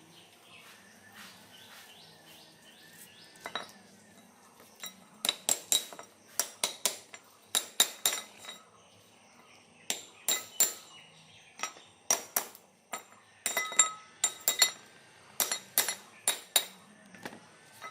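Sharp metal-on-metal clinks and taps in irregular quick clusters, each ringing briefly.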